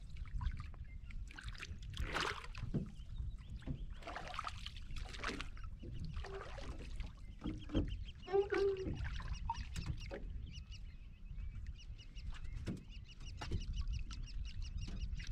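Wind rumbling on the microphone and water lapping at a small wooden boat, with scattered splashes, rustles and knocks as a fishing handline is worked over the side. From about halfway through, a faint rapid high chatter repeats in the background.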